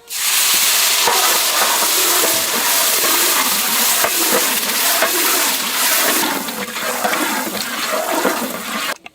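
Stone-ground tomato, onion and masala paste sizzling loudly as it goes into hot butter, a steady hiss with spluttering crackles that cuts off suddenly near the end.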